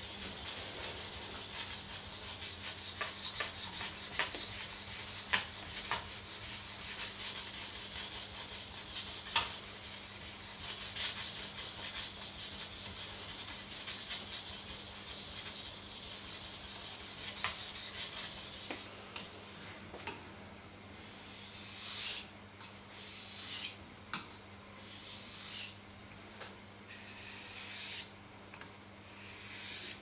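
Victorinox Swiss Army knife blade scraped back and forth by hand on a wet whetstone: quick, continuous rasping strokes while the bevel is ground. About two-thirds of the way through the strokes stop, leaving only a few scattered scrapes.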